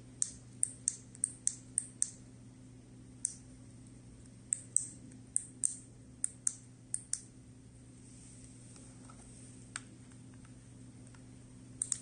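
Push buttons on a handheld 433 MHz copy remote clicking as they are pressed in a button sequence to clone another remote: two quick runs of sharp little clicks in the first seven seconds, then one click and a quick double click near the end. A faint steady hum lies underneath.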